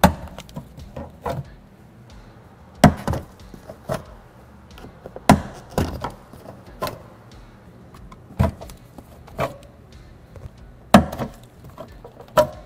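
Irregular sharp clicks and knocks of a pick tool and an open-end wrench prying at the plastic headrest guide shafts and their retaining clips in a pickup's rear seat back. There are about ten hits; the loudest come at the start, about three seconds in and about eleven seconds in.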